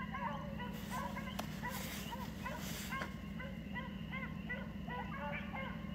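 A pack of coyote hounds baying on a running coyote's trail: many overlapping short yelps and bawls, one after another, over a steady low hum.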